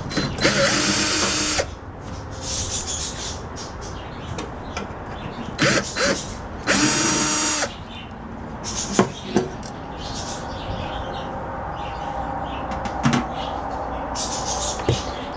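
Power drill-driver running in short bursts of about a second, twice loudly, as the microwave oven's magnetron is being unbolted. Between the bursts are a few sharp knocks and clatter of metal parts.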